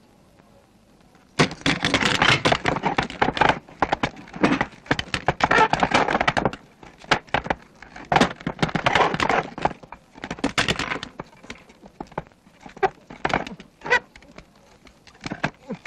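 Something breaks with a sudden crash, followed by a long, dense clatter of small metal parts (screws, springs, gears) rattling and scattering across a floor in waves, thinning to scattered single clicks and knocks near the end.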